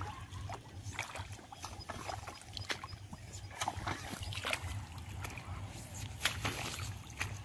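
Rubber boots wading through a flooded rice paddy: irregular sloshes and splashes of shallow water and mud with each step, over a steady low rumble.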